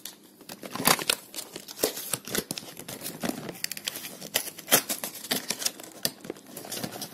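Packaging of a power strip being opened and handled: irregular crinkling, tearing and sharp clicks.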